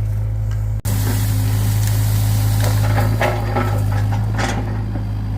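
Excavator engine running steadily, with irregular crackling and snapping of tree wood from about three seconds in as the machine breaks up trees. The engine sound drops out for an instant under a second in.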